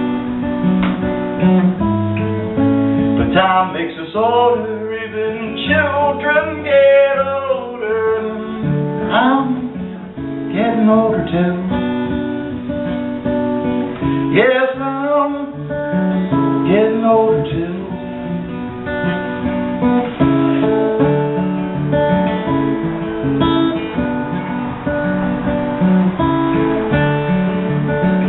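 Acoustic guitar played solo and live, an instrumental passage of picked and strummed notes.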